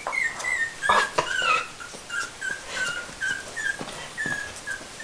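Four-week-old Chihuahua puppy whimpering in a string of short, high squeaks, about two a second, with a couple of sharp knocks about a second in.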